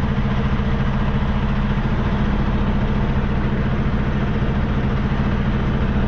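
Semi truck's diesel engine idling steadily, heard from inside the cab.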